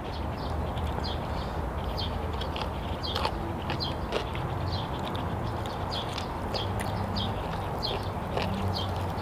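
Close-up chewing and lip-smacking while eating grilled chicken and long-bean som tam, a steady run of soft wet clicks about twice a second.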